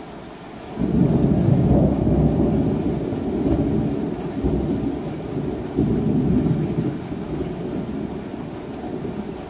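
Thunder rumbling over steady rain. The deep rumble breaks in suddenly about a second in, swells again around six seconds, then slowly dies away.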